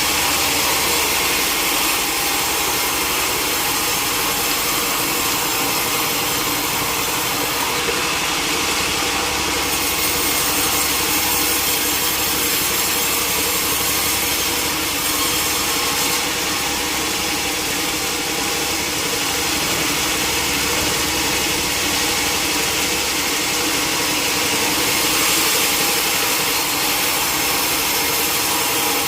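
Sawmill saw running steadily and cutting through a teak log: a loud, continuous whine with a strong hiss, the hiss growing brighter twice.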